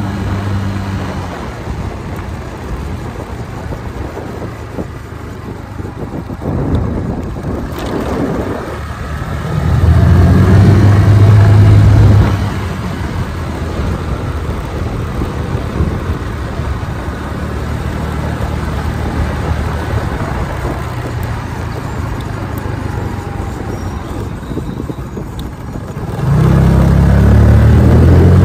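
Chinese 150cc motor scooter engine running during a ride, with wind rushing over the microphone. A steady low engine hum swells loud for about two seconds roughly ten seconds in, and again near the end.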